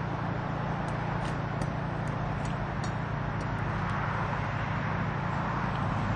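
Steady outdoor background noise with a low hum, with faint scattered high ticks.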